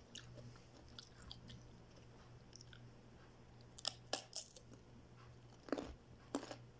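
A bite into a whole raw cucumber about four seconds in, a quick cluster of crisp crunches, then crunchy chewing with two more sharp snaps near the end.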